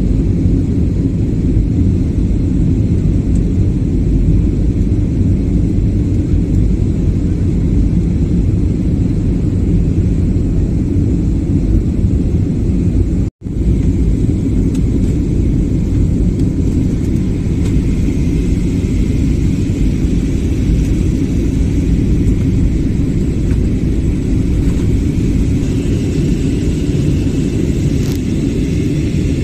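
Steady low rumble of airliner cabin noise, jet engines and airflow, heard from a window seat during the climb. It cuts out for an instant about halfway through.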